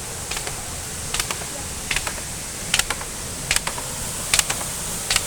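Footsteps on rocky ground while walking uphill: sharp crunching clicks in pairs about every 0.8 s, over a steady background hiss.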